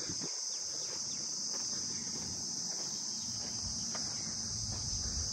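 Steady high-pitched insect chirring, unbroken throughout, over a faint low background rumble.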